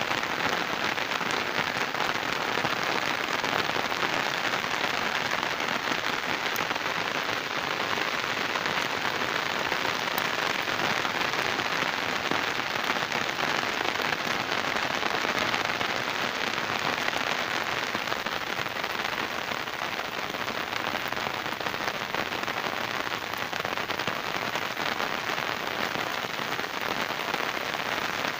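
Steady monsoon rain falling, an even unbroken hiss.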